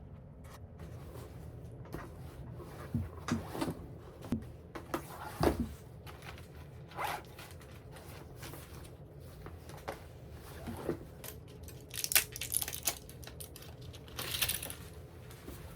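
Close handling noises: scattered small knocks and rustles, then a few brief raspy, zipper-like strokes near the end.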